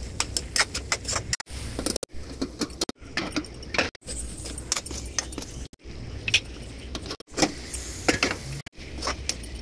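A steel spoon scraping and clinking against a metal kadhai as cooked potatoes and green beans are stirred, in quick irregular strokes over a low steady hum. The sound breaks off abruptly several times where short clips are joined.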